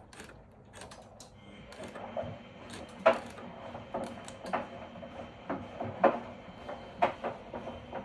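Miele front-loading washing machine starting a Cottons 95 °C wash: a run of clicks and knocks, roughly one a second, over a faint steady whine that comes in about one and a half seconds in.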